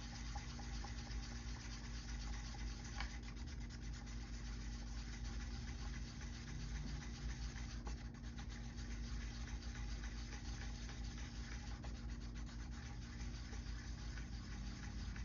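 Two-part casting resin being stirred by hand in a mixing cup: a continuous scraping rub, over a constant low hum.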